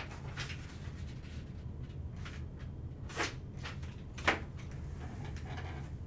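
Steady low hum with a few faint short clicks and two sharper brief knocks, about three and about four seconds in, the second the loudest.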